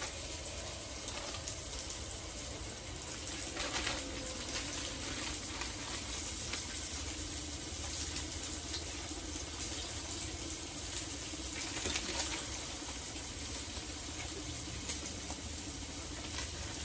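Bluegill fillets frying in hot oil: a steady sizzle with fine crackling, with a plastic zip-top bag rustling now and then.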